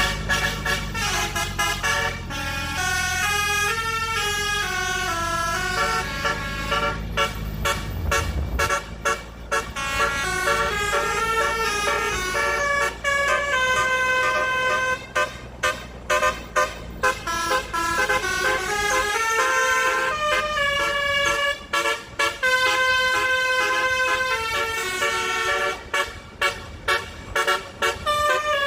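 Truck's basuri musical horn, a 24-trumpet telolet horn, playing a melody of stepped notes in phrases with short breaks between them. A low engine rumble runs underneath for the first eight seconds or so.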